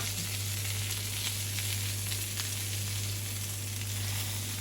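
Chicken pieces frying in butter in a hot pan: a steady sizzle with scattered small crackles, over a steady low hum.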